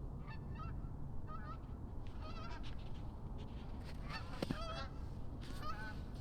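A flock of geese honking repeatedly, in about five bursts of calls, the loudest a little past the middle, over a steady low background rumble.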